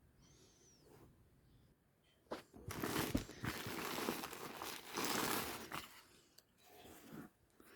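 Packaging crinkling and rustling as it is handled, for about three seconds from near the middle, after a single click.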